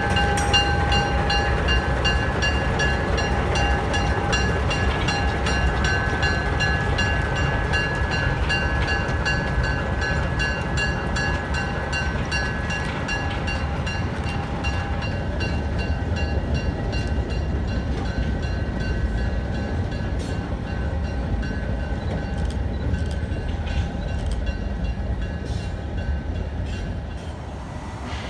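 Alco RS1 switcher's turbocharged six-cylinder diesel engine running as the locomotive pulls a string of freight cars past, with a steady high-pitched whine over the low rumble that fades about halfway through. Steel wheels click over rail joints in the later part as the cars roll by.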